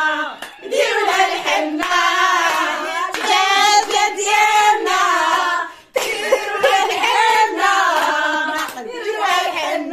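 Voices singing a traditional henna song together, with hand clapping. The singing breaks off for a moment about six seconds in, then goes on.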